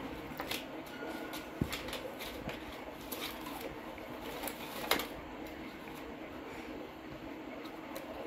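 Steady rushing hiss of a white-noise sound machine set to a waterfall sound, with the rustle and crinkle of glossy magazine pages as a monkey flips and pulls at them; one sharper paper crackle about five seconds in.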